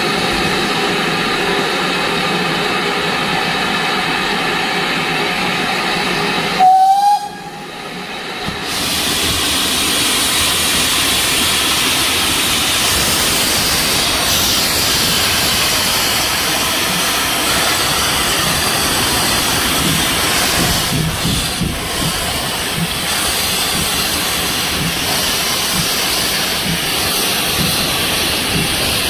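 Steam locomotive, GWR Manor-class 4-6-0 7822 Foxcote Manor, hissing steam steadily. About seven seconds in it gives one short, loud whistle blast, then a fuller steady steam-and-train noise carries on.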